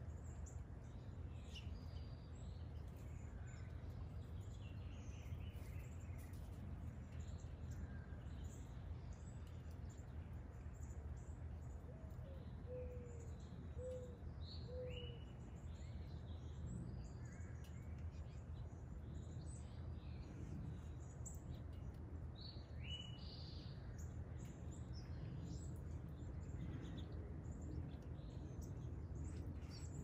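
Several songbirds chirping and singing, with short calls and trills scattered throughout, over a steady low background rumble. About halfway through, three short low notes sound in a row.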